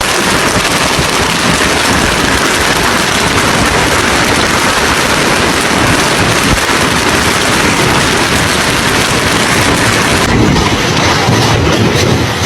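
Heavy hail pelting down in a dense, continuous downpour of hailstones striking hard surfaces. The sound changes about ten seconds in, losing some of its hiss.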